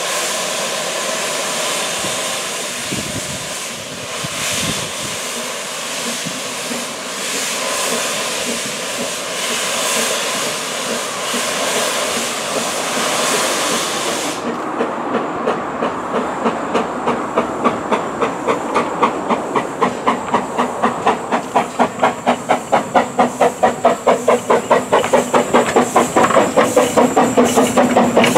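Narrow-gauge steam tank locomotive No. 7 'Tom Rolt' of the Talyllyn Railway: a loud, steady hiss of steam blowing from the cylinder drain cocks, which cuts off suddenly about halfway through. Then the engine pulls away with its exhaust chuffs getting louder and quickening as it gathers speed past the microphone.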